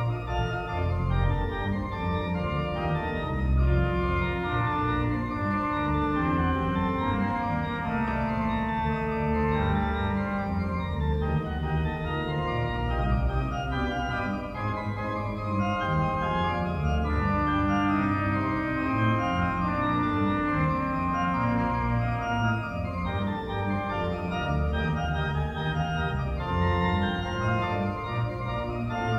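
Pipe organ playing music in held chords over a deep pedal bass line.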